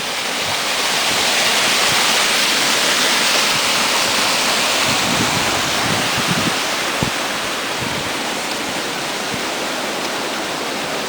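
Water rushing over a small lake dam's spillway: a steady, even rush that grows louder over the first two seconds, then eases slightly.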